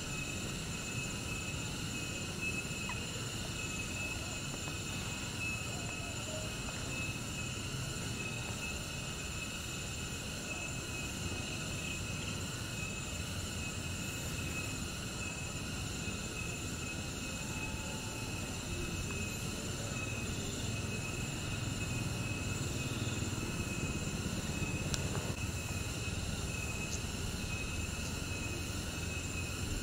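Steady outdoor ambience: a constant high-pitched insect drone over a low rumble that swells a little past the middle.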